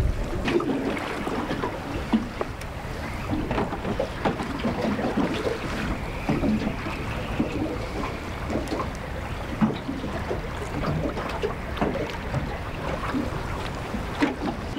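Wind buffeting the microphone while choppy water slaps against the hull of a small aluminium boat, with scattered small knocks throughout.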